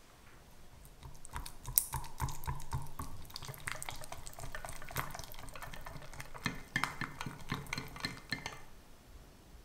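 Red silicone whisk beating a pat of butter into thick vanilla pastry cream in a stainless steel saucepan: wet, squelching stirring with quick light clicks of the whisk against the pan. It starts about a second in and stops shortly before the end.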